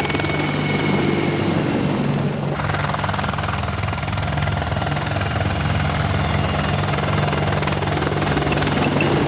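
Military helicopter in flight: steady rotor and turbine engine noise with a rapid low pulsing from the blades, changing in character a little under three seconds in.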